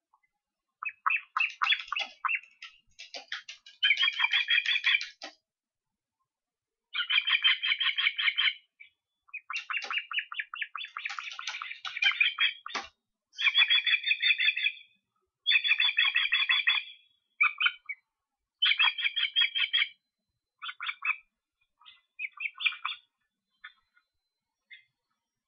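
Juvenile ospreys calling: series of rapid, high chirps, each run lasting a second or more, repeated with short pauses; the runs become shorter and fainter near the end.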